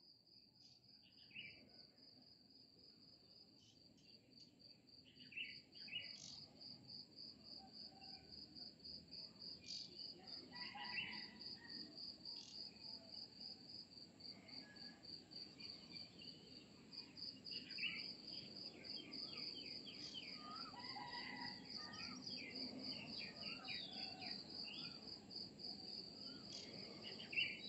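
Faint outdoor ambience: an insect keeps up a steady, rapid high-pitched trill, and scattered bird chirps grow more frequent from about five seconds in.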